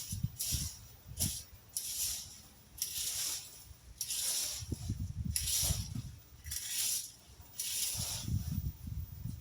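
A rake dragged in repeated strokes through leaves and tree trimmings, a scratchy swish about once a second, with wind buffeting the microphone.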